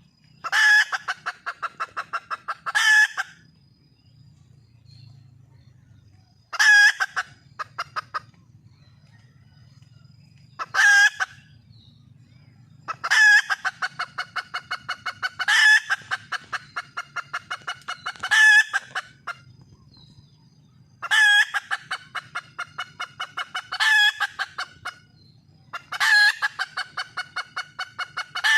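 Junglefowl hen calling in repeated bouts. Each bout is a loud call followed by a quick run of short clucking notes, several times a second. This is the hen's call to attract a male.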